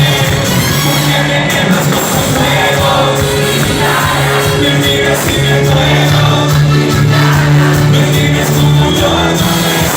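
Live cumbia band playing an instrumental passage, held notes over a continuous beat, with no lead vocal.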